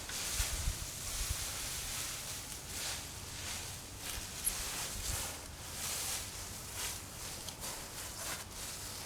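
Dry weeds rustling as they are brushed through during a metal-detector search, a run of swishes with a few dull low thumps near the start and again midway.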